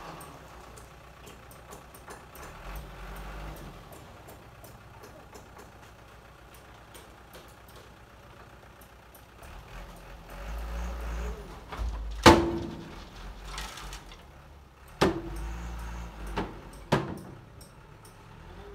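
Light dump truck tipping a load of soil: its engine runs low while the dirt slides out of the raised steel bed. Then come three loud, ringing metal clangs from the steel bed and tailgate, a few seconds apart, the first the loudest.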